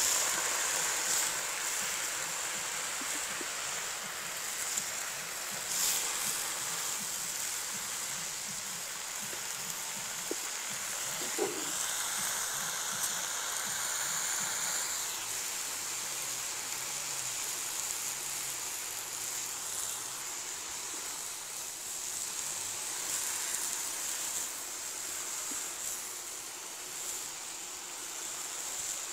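Red spinach leaves sizzling and steaming in a hot karahi as they wilt: a steady hiss, with a few faint clicks.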